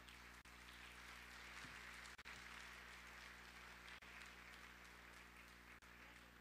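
Faint congregation applause, an even patter that thins out near the end, over a low steady electrical hum.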